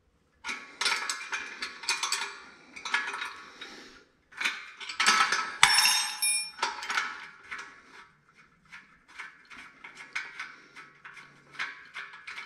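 Steel hand wrenches clinking and scraping against a bolt and the steel bender post as a nut is turned to set a threaded insert. There is a ringing metal clink about five and a half seconds in, and a run of small clicks near the end.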